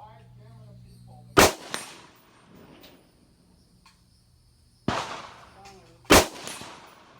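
Three shots from a custom-built AR-15 rifle: the first about a second and a half in, the other two a little over a second apart near the end. Each is a sharp crack that dies away with a short echo.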